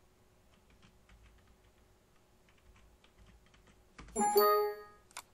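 Faint, scattered computer keyboard clicks, then about four seconds in a short, bright chime of a Windows system sound that rings out for under a second, followed by a single click.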